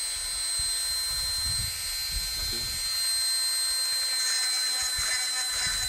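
Small handheld electric rotary tool running at a steady high whine, its thin bit spinning inside the socket of a trolling-motor power plug to scrape the contacts clean, with handling knocks from the hands holding the plug.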